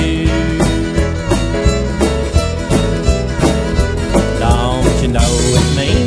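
Country-style band music in an instrumental stretch with no singing: melody lines sliding up and down over a steady beat of about three strikes a second.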